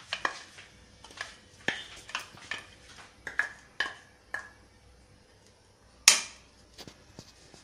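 A plastic bowl and a spatula knocking and scraping against a nonstick kadai as grated coconut is tipped in and pushed about: a string of sharp taps for the first four seconds or so, then one louder knock about six seconds in.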